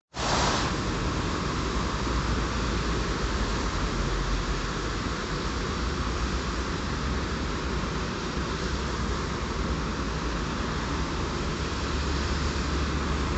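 PESA Elf EN76 electric multiple unit standing at the platform, its auxiliary equipment and ventilation giving a steady low hum and hiss.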